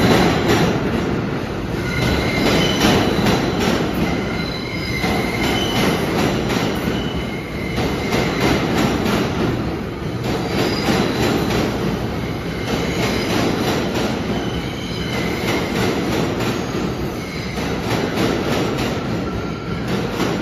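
New York City Subway C train running fast over the switches in a subway tunnel: steady wheel rumble with a run of clattering clicks as the wheels cross the switch joints, and short high-pitched wheel squeals that come and go.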